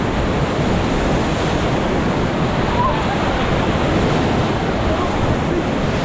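Steady, loud rush of whitewater from a Ganges river rapid around a raft, with wind buffeting the microphone.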